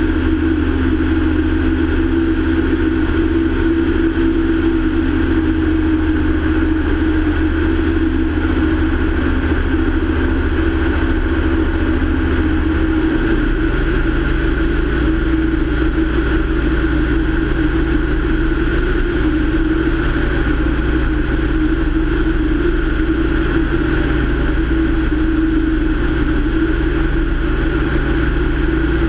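Steady drone of a light single-engine airplane's piston engine and propeller in flight, heard from a camera mounted on the outside of the aircraft. The low part of the drone shifts slightly about halfway through.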